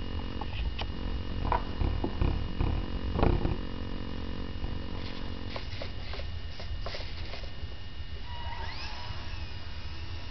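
Parkzone Vapor micro RC airplane's tiny electric motor winding up with a rising whine for takeoff about eight seconds in, then holding a steady high whine. Before it, a low steady hum with a string of clicks and a few louder knocks.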